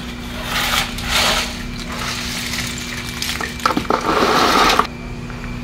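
A steel shovel scraping into a heap of broken oyster shells and tipping them into a plastic basin: the shells clatter and rattle, first briefly about half a second in, then louder and longer as the shovelful pours into the basin near four seconds.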